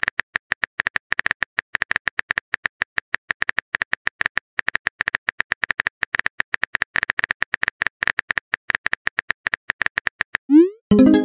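Typing clicks from a texting app's on-screen keyboard: short, even clicks at about eight a second as a message is typed, stopping about ten seconds in. Near the end come a short rising swoosh and a tone.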